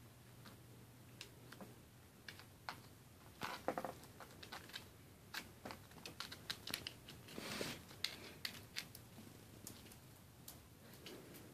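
Striped skunk biting and chewing a small apple: faint, irregular crunches and wet clicks of teeth on the fruit, with a few louder crunches in the middle.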